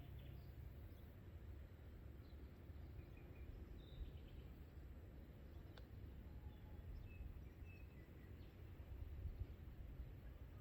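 Faint outdoor nature ambience: a low steady rumble with a few distant bird chirps scattered through.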